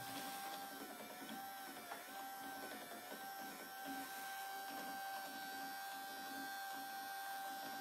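Bosch power-window motor from a Volga car running steadily with a whine, turning the robot manipulator's rotating platform through a welded toothed gear segment. The pitch dips briefly twice, about two and three seconds in.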